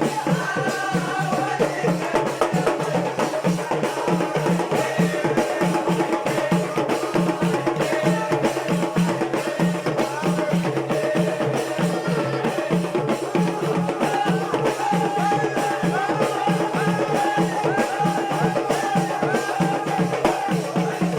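Moroccan popular music: a male voice singing over hand drums and percussion keeping a steady beat.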